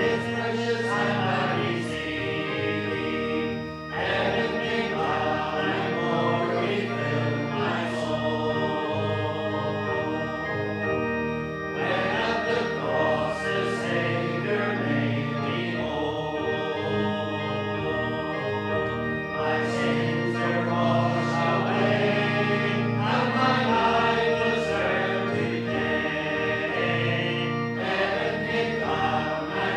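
Congregation singing a hymn with musical accompaniment, in long held phrases.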